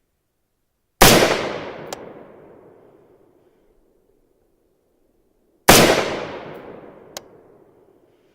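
Two single rifle shots from an AR-15 (Troy Alpha upper, 5.56) firing .223 rounds, spaced a little under five seconds apart, each trailing off in a long echoing decay. A short sharp tick follows about a second after each shot.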